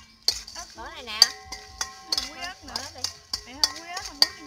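Metal spoon clinking against a stainless steel bowl while mixing sliced green mango with chili and salt, with many sharp clinks in quick succession.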